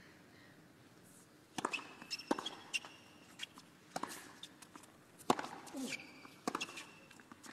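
A tennis ball bouncing a few times on a hard court, then the sharp pops of racket strikes in a rally, with shoe squeaks and a player's grunt.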